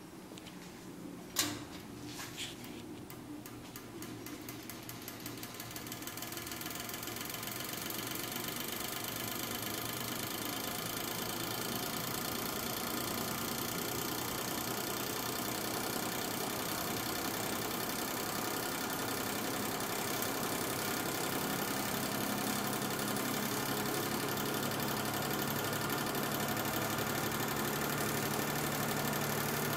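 A 1960s Cory Fresh'nd Aire 20-inch box fan is switched on with a click about a second in. The motor spins up over several seconds, a ticking that quickly speeds up and blends into a steady motor hum and blade whoosh.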